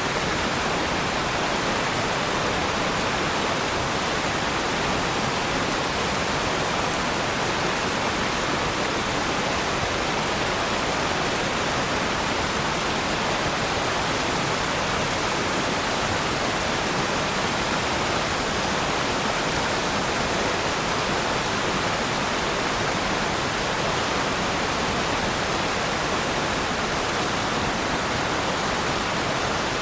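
Waterfall: a steady, even rush of falling water with no changes.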